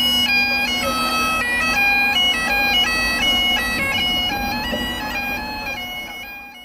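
Bagpipes playing a tune over their steady drone, fading out near the end.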